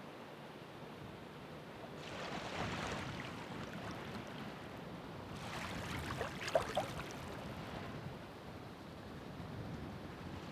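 Ocean waves breaking and washing in over a steady background of surf. One surge comes about two seconds in, and a louder one past the middle carries a few sharp splashes.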